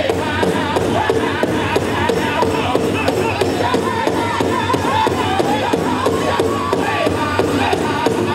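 Powwow drum group performing a chicken dance contest song: several men singing in high, wavering voices over steady, even beats on a large powwow drum.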